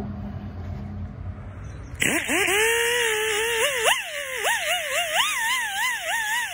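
Right-angle die grinder with an abrasive wheel starting up about two seconds in, after a low steady hum, its whine rising as it spins up and then wavering in pitch with a hiss as it is pressed against a rusty mower idler-arm pivot bolt to clean off the rust.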